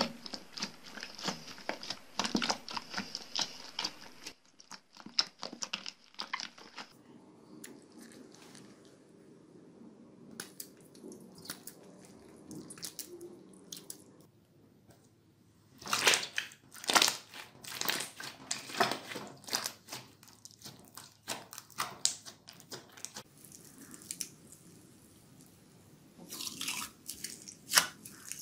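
Hands pressing and squeezing slime, some of it studded with foam beads, giving wet crackling and popping clicks. The clicking comes in three busy stretches, with a quieter spell in the middle.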